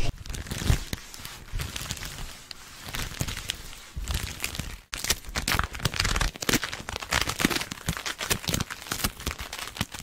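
Crinkly material rustled and crumpled close to the microphone: a dense, irregular stream of crackles with a short pause about halfway through.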